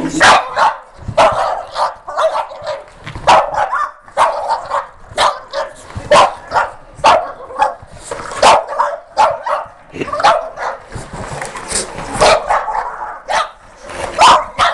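A dog barking repeatedly, about one sharp bark a second with some higher yips mixed in, in reaction to a vacuum cleaner.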